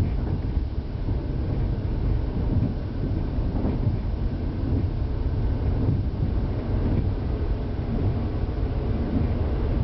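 KTR001-series Tango Explorer diesel railcar running along the line, heard from inside the front car: a steady low rumble of the train under way.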